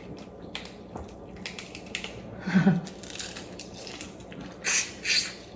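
Boiled crawfish shells cracking and peeling under the fingers, a run of small sharp crackles and clicks, then two loud slurps close together near the end as a crawfish is sucked at the mouth.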